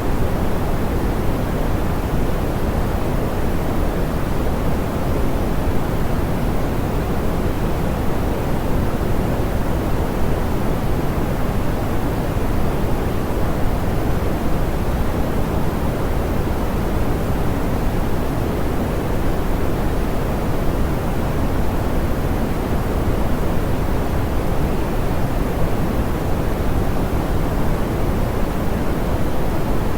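Steady, soft pink noise: an even hiss weighted toward the low end, unchanging throughout.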